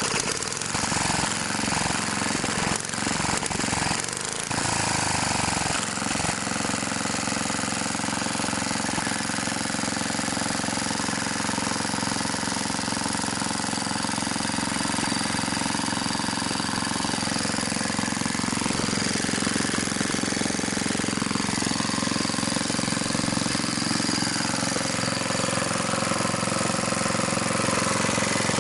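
BSA 220cc single-cylinder governed stationary engine running with the throttle opened up and no muffler on its exhaust. The fuel tap is shut, so it is burning the fuel left in the carburettor before shutdown. There is some uneven knocking in the first few seconds, then it runs steadily.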